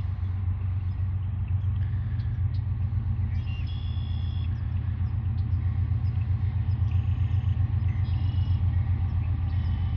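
Diesel locomotive engines of a CSX freight train rumbling as the train approaches, a steady low drone that grows slightly louder.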